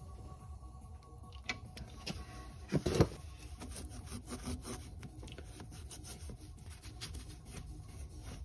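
Handling and rubbing noises with a scatter of small clicks and one louder knock about three seconds in, from work on the car's brakes.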